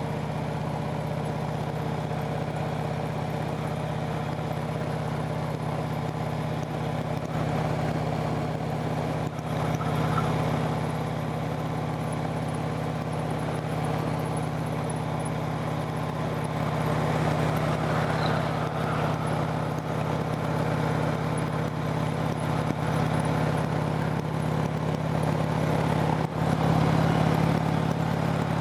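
Harley-Davidson V-twin motorcycle engine running steadily while being ridden. It gets slightly louder about two-thirds of the way through and again near the end.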